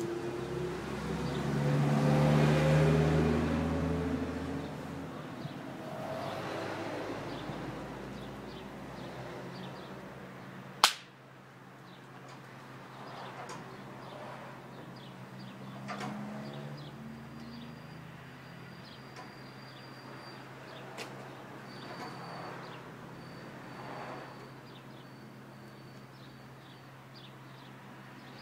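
Outdoor ambience with a low rumble that swells and fades over the first few seconds, then one sharp crack about eleven seconds in, followed by quieter rises and falls.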